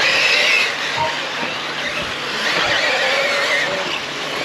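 Brushless electric motors of several off-road RC cars whining as they race, the pitch wavering up and down with throttle, over a constant hiss.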